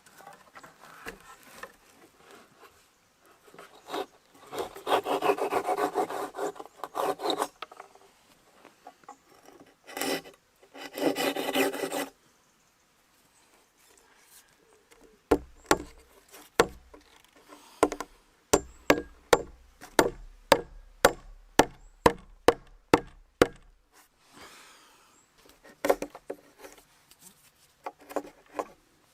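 Wood being worked with hand tools: two long rasping, scraping passes over wood, then a steady run of sharp knocks on wood, about two a second.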